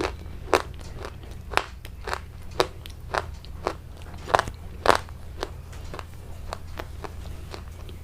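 Crisp food being bitten and chewed close to the microphone, with sharp crunches about twice a second that grow fainter after about five seconds.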